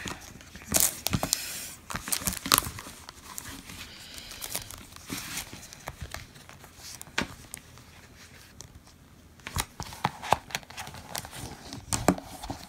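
Clear plastic packaging crinkling and rustling, with irregular clicks and taps as tablet cases are handled. The loudest crackles come in the first few seconds, and it quiets briefly before more clicking near the end.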